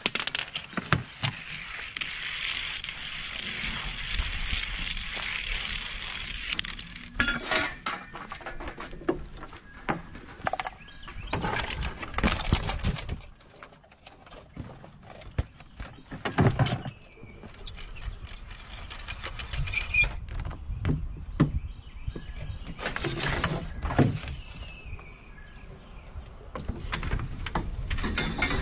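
Toy cars and a ball rolling and rattling along a homemade backyard run of plastic and wooden tracks, with a steady rolling rumble broken by frequent knocks and clatters as they drop, bump and hit the pieces of the contraption.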